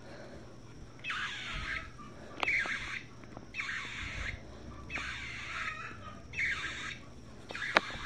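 Recorded blue jay calls played by a Wild Republic Audubon Blue Jay plush's sound box: a series of harsh jeer calls, about one a second.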